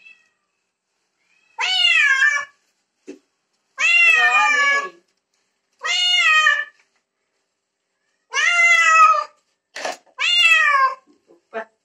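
Domestic cat meowing loudly while being bathed. It gives five separate meows about two seconds apart, each under a second long and rising then falling in pitch.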